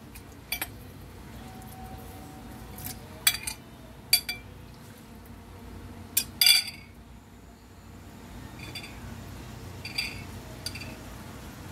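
Scattered clinks and knocks of kitchen utensils and dishes around a wok of marinating pork, the loudest a short cluster about six seconds in and fainter taps near the end.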